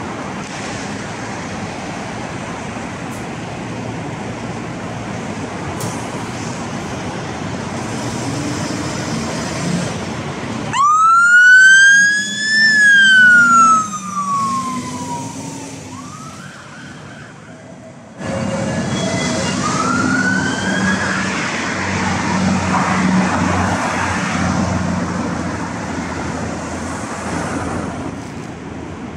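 Fire engine's diesel engine running as it pulls out on an emergency call, with its siren sounding: one loud wail about a third of the way in that rises and then falls away, and later, as the engine suddenly gets louder, a shorter rising wail.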